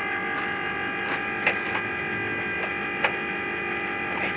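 A steady mechanical hum made of several constant tones, with a few light clicks scattered through it, the loudest about a second and a half in and three seconds in.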